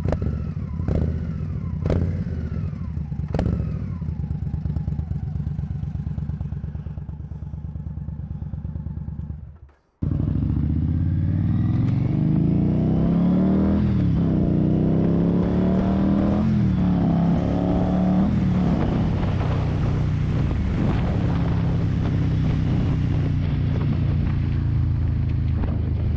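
Indian Scout's V-twin engine idling with a few short, sharp revs. After a brief cut it pulls away, the note climbing and dropping back three times as it shifts up through the gears, then holding steady at cruising speed.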